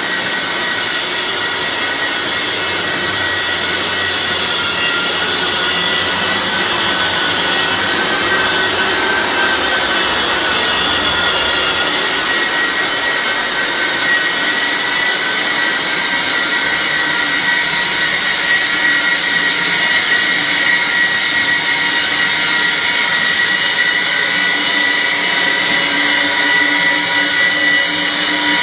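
Floor sanding machine running steadily, a high motor whine over a hiss, its pitch wavering slightly during the first half.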